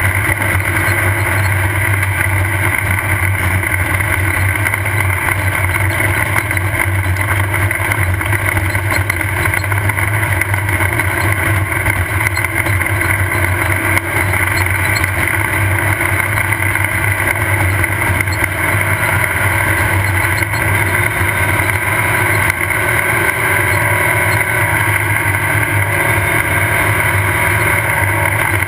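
Off-road race car running at a steady pace: a loud, continuous engine drone mixed with the noise of the car travelling over the course, heard from onboard.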